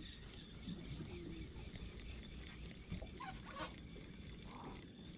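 Faint low rumble of wind and water around a small fishing boat, under a faint wavering high whine. A few brief chirps and clicks come about three seconds in.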